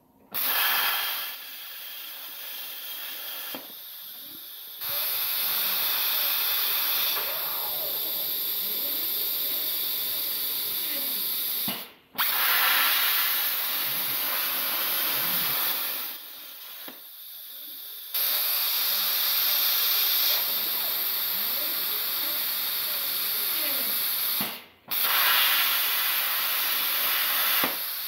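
CNC plasma torch cutting copper sheet: a loud, steady hiss of the arc and cutting air. It cuts out for a moment twice, about twelve seconds in and near the end, and is softer for a few seconds after it starts and again past the middle. The gantry's stepper motors whine faintly underneath in rising and falling tones as the torch moves.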